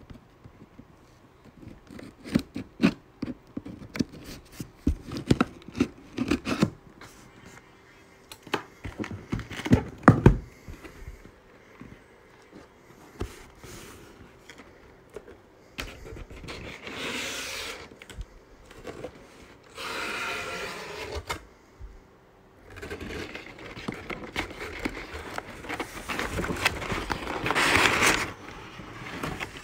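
A serrated blade cutting and scraping along packing tape on a cardboard carton, with a run of clicks and knocks on the cardboard and one sharp knock about ten seconds in. Then crumpled paper packing inside the box rustles and crinkles in long stretches as it is pushed aside.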